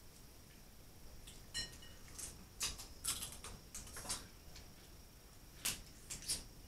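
Snow crab shells being cracked and picked apart by hand: a string of short, sharp cracks and clicks, bunched in the first half and twice more near the end.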